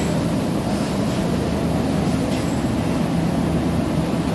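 Railway station background noise: a steady low drone with a faint hum underneath, unchanging throughout.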